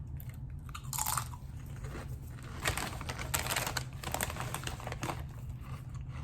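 Kettle-cooked potato chips being bitten and chewed close to the microphone: irregular crisp crunches, the biggest about a second in and around the middle. A low steady hum runs underneath.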